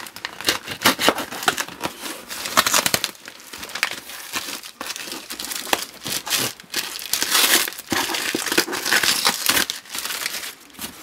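Clear plastic wrap and packing tape crinkling and tearing as a cardboard shipping box is cut open with a knife. A continuous run of irregular crackles and rasps.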